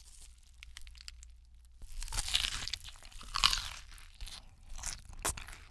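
Crunchy food being bitten and chewed: faint crackles at first, then loud, irregular crunching a couple of seconds in and again a second later, with a sharp crack near the end.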